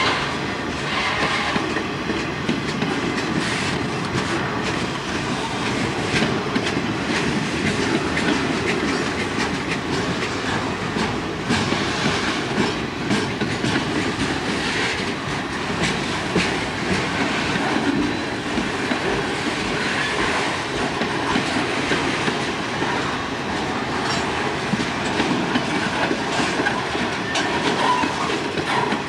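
Railroad cars rolling steadily past, with a continuous rumble and wheels clacking over the rail joints.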